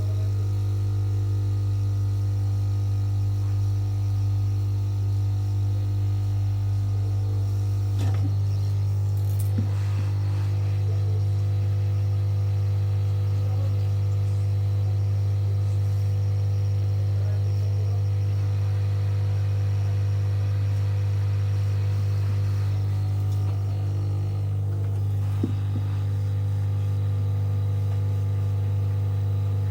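Loud, steady electrical mains hum with evenly spaced overtones, its tone shifting slightly about eight seconds in, with a few faint clicks.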